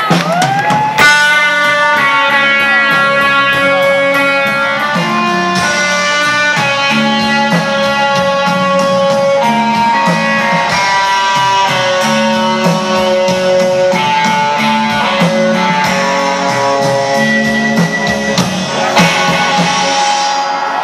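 Rock band playing live: distorted electric guitars over a drum kit, with a steady beat of cymbal strokes. Sliding guitar notes lead in, and the full band comes in about a second in.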